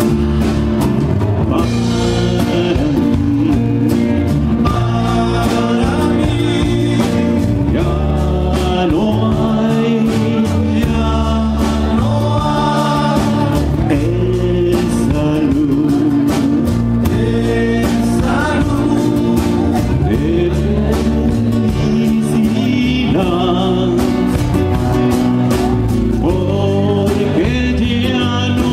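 Live band playing a song: a man singing over acoustic guitar, congas and a drum kit with a steady beat.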